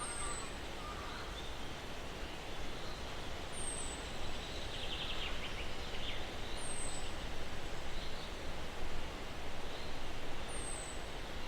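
Steady wind rushing through pine trees, with a bird repeating a thin, very high, falling whistle four times, about every three seconds. Fainter chirps and a short trill from other birds come in between.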